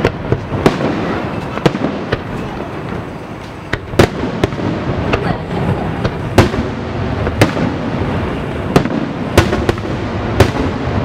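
Aerial fireworks display: about fifteen sharp shell bursts at irregular intervals, roughly one to two a second, over a continuous low rumble, with the loudest bangs about four and six and a half seconds in.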